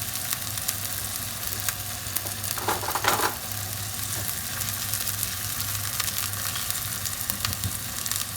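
Onions and mushrooms sizzling and crackling as they fry over high heat in a small cast iron frying pan. There is a short louder burst about three seconds in.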